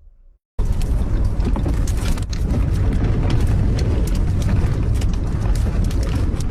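Strong gale buffeting the microphone: a loud, rumbling roar of wind with crackling gusts that starts abruptly and cuts off at the end.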